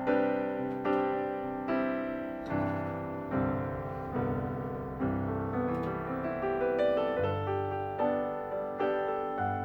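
Background piano music: slow, gentle notes struck about every second and left to fade.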